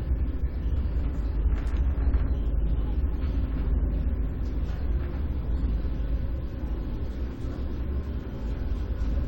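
Electric elevator car travelling between floors: a steady low rumble and hum, with a few faint rattles and ticks about a second and a half in.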